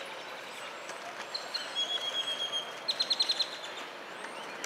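A bird calling over steady outdoor background noise. It holds a high note for about a second, then gives a quick run of about six sharp chirps near three seconds in, the loudest sound here.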